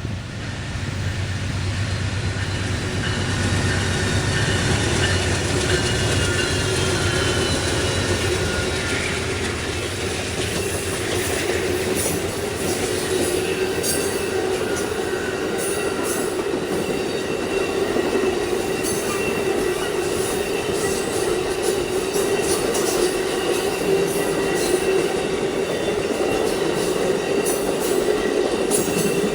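Amtrak Auto Train passing close by. A low rumble from the locomotives fills the first several seconds, then the long string of cars rolls past with a steady wheel squeal and rapid clicking over the rail joints.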